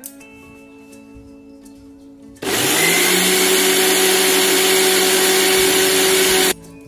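Electric mixer grinder's motor running with its steel jar of wet masala paste (tomatoes, cashews, ginger, green chillies and a little water). It starts about two and a half seconds in with a brief rise in pitch, runs loud and steady for about four seconds, then cuts off suddenly near the end.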